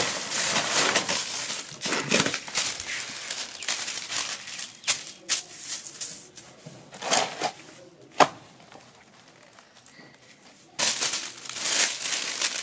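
Clear plastic wrapping film crinkling and rustling as hands smooth it flat and fold it around a cardboard box, with a few sharp crackles. It dies down for a couple of seconds about two-thirds of the way through, then loud rustling starts again.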